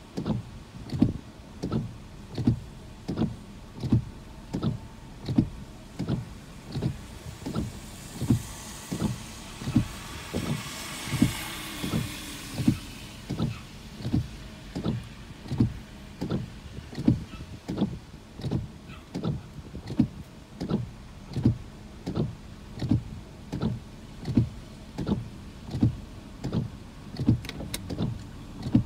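Car windshield wipers sweeping back and forth, a regular low thump at each stroke. Midway, a hiss swells and fades as a car passes on the wet road.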